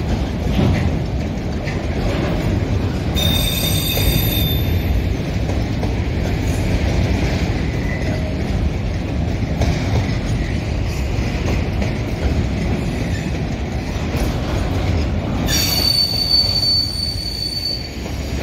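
Freight train of autorack cars rolling slowly past, a steady low rumble of wheels on rail. High-pitched wheel squeal cuts in twice: briefly about three seconds in, and for a couple of seconds near the end.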